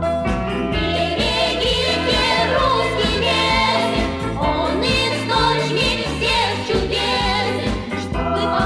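Music with singing voices over a steady accompaniment.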